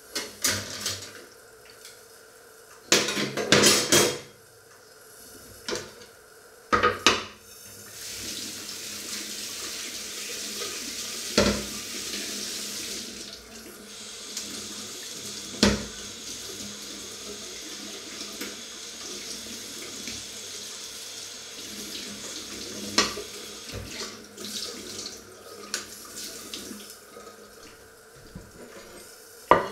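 A kitchen tap running into a stainless-steel sink while a plate is washed. Dishes clatter a few times at first, then the water runs steadily for most of the rest, with a few sharp knocks of crockery against the sink.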